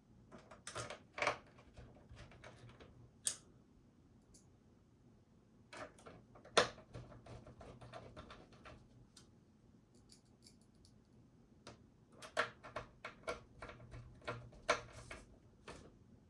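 Irregular small clicks and clatters of plastic and metal computer parts being handled and fitted together, in short clusters with pauses between them.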